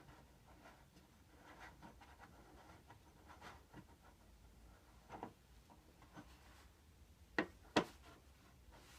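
Faint rubbing and handling sounds of a rag-wrapped finger wiping excess silicone from a metal yo-yo's response groove, with a few light ticks and two sharp clicks close together near the end.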